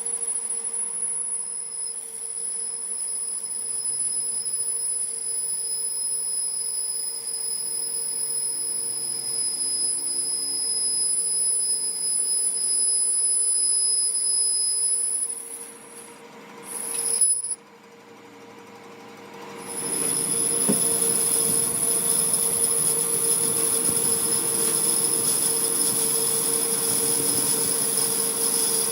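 Workshop machine working metal with a steady high-pitched metallic whine and squeal. It stops briefly about two-thirds of the way in, with a short loud clatter, then starts again louder.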